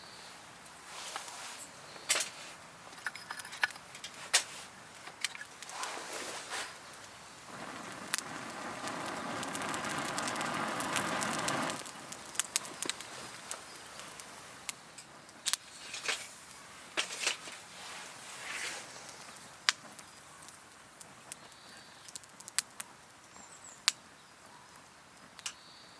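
Wood campfire crackling, with scattered sharp pops. A louder rushing noise swells for about four seconds about a third of the way in.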